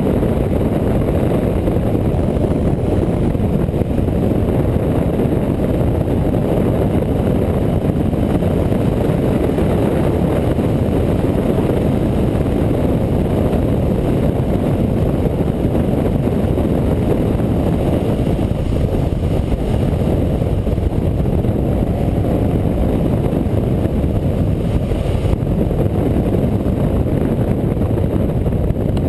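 Motorcycle cruising at steady road speed, heard from a camera mounted on the bike: a constant low rumble of engine and wind rush with no gear changes or breaks.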